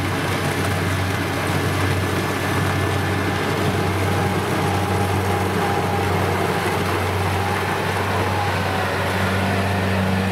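Kubota rice combine harvester running steadily while cutting and threshing, a constant engine drone with a dense mechanical clatter over it. About nine seconds in, a second, higher engine hum joins it.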